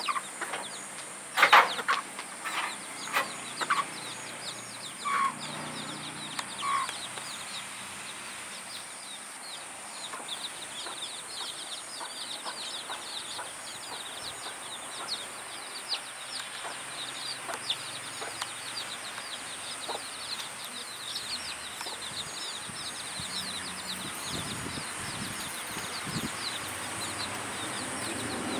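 A flock of chickens with chicks: several short, loud clucks in the first seven seconds, over a constant stream of high-pitched chick peeping.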